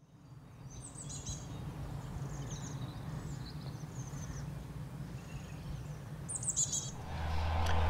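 Small birds chirping and singing in short phrases over a steady low ambient rumble, fading in from silence at the start; a louder low hum comes in near the end.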